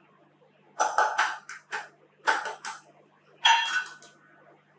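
An egg tapped against the rim of a small stainless-steel cup to crack it: three quick runs of sharp metallic clinks with a short ring.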